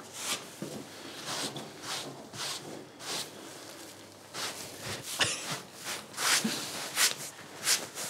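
Irregular soft rustles and scuffs of people moving about and handling a freshly sawn log, with footsteps among them. The chainsaw mill is not running.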